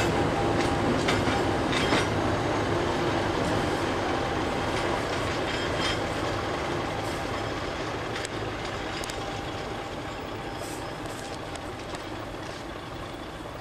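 A Class 50 diesel locomotive's English Electric V16 engine is working under power as it hauls the train, heard from the coach behind it. A steady engine drone runs with scattered clicks of wheels over rail joints and points, and it grows gradually fainter.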